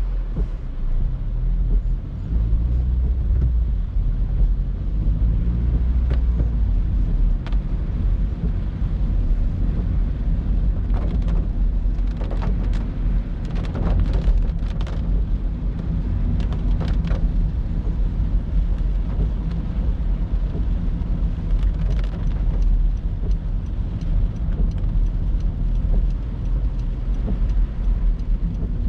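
Honda CR-Z hybrid car driving: a steady, loud low rumble of engine and road noise, with scattered sharp ticks through the middle.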